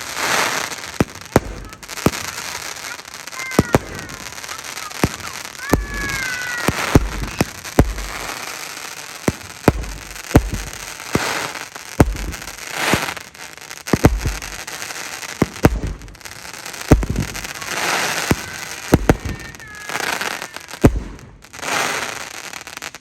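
A 16-shot consumer fireworks cake (Dragon Fireworks 'Eye of Osiris') firing: a long run of sharp reports with deep thumps, each opening into a crackling burst.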